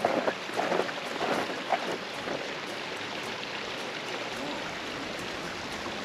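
Steady rushing of water from a frozen waterfall, its flow running on beneath the ice. A few uneven scuffs of footsteps in snow are heard in the first two seconds.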